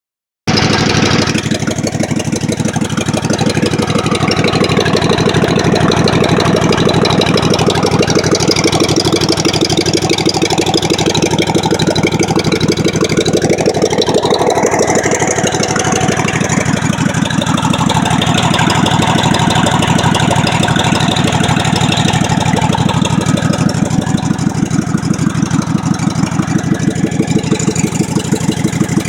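Small lawn mower engine running steadily and loudly, with an even pulse of firing strokes.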